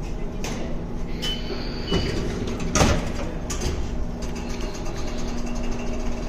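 Steady low hum of an underground subway station concourse, with scattered clicks and two short high beeps about one and two seconds in, as the swing-paddle fare gates are passed. A loud sharp thump comes a little before midway.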